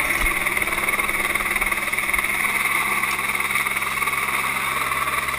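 Helicopter holding a hover overhead during a long-line operation: a steady engine and rotor noise that does not change.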